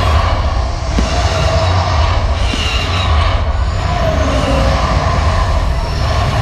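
Fireworks bursting overhead, heard as a continuous deep rumble with a few sharp cracks.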